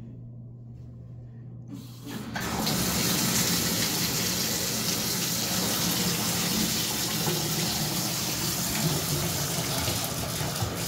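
Water from a bathtub spout pouring into the tub, starting about two seconds in when the single-lever shower valve is turned on, then running as a steady rush.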